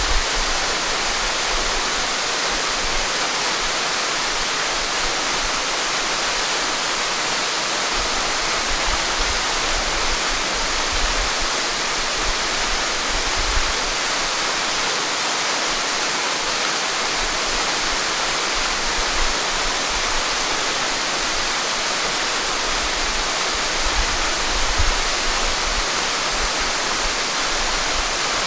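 Waterfall cascading down a rock face into a pool: a steady, even rush of falling water, with a few brief low rumbles underneath.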